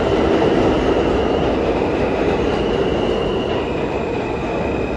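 New York City subway train running along the platform of an underground station: a steady rumble of wheels on rails with a faint high whine above it.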